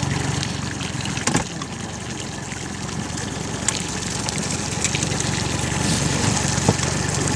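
Outboard motor idling steadily, with water lapping and a short splash near the end.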